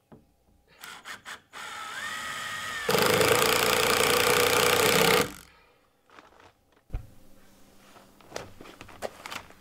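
Ryobi cordless driver running a screw through a steel door's hinge: the motor spins up with a rising whine, then turns much louder and harsher for about two seconds as the screw drives home, and stops. A single dull knock comes near the end.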